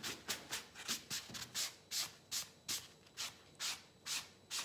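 A sponge scrubbed back and forth over paper, rubbing the paper backing off a Xerox transfer: a rhythmic scratchy swish of about three strokes a second.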